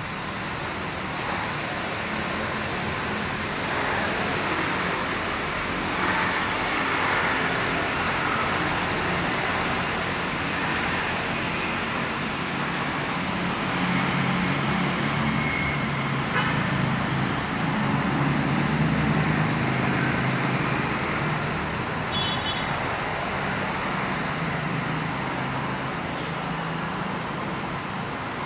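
Steady road traffic noise from passing motor vehicles, with a low engine hum swelling louder through the middle and easing off later.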